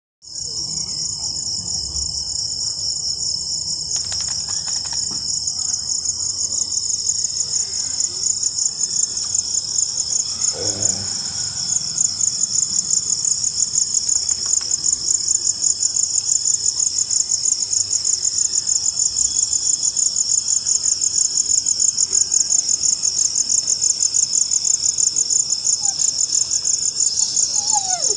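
Crickets calling in a continuous high, rapidly pulsing trill that slowly grows louder.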